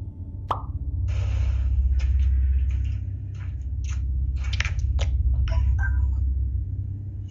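A series of sharp clicks, rattles and knocks at an irregular pace over a steady low rumble, typical of a doorbell camera's microphone.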